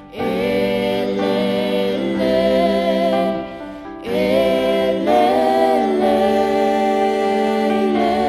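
A slow hymn sung by two singers, with long held notes. One phrase ends and the next begins about four seconds in.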